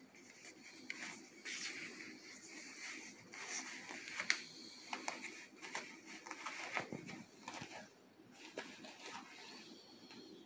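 Cloth rustling and scratching as a kitten wrestles and paws inside it: irregular scrapes and small clicks, with one sharp click about four seconds in.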